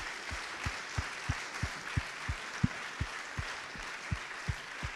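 An audience applauding, with close, even claps about three a second coming through as low thumps from a person clapping while holding the microphone.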